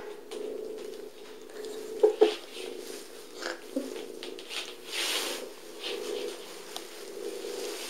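Calico cat purring while playing, with two sharp knocks about two seconds in and a brief rustle about five seconds in.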